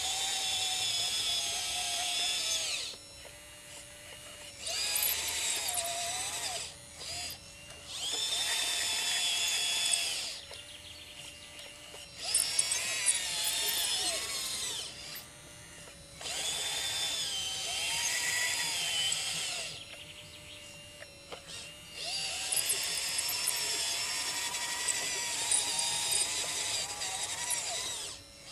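Hydraulic radio-controlled scale model of a Liebherr LR632 crawler loader working: its electric motors, gearboxes and hydraulic pump whine in repeated bursts of a few seconds, the pitch rising and falling as it drives and moves the bucket. A faint steady hum carries on in the short pauses between bursts.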